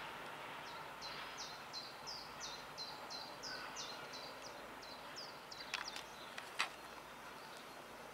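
A small bird singing a run of about a dozen quick, falling notes, roughly three a second, that stops about five seconds in. Under it, the faint, fading noise of a DB class 218 diesel locomotive moving away, with a couple of sharp ticks later on.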